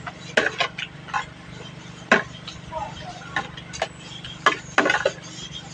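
Eating sounds close to the microphone: irregular sharp clicks and short crunchy smacks of chewing and mouth noises, over a steady low hum.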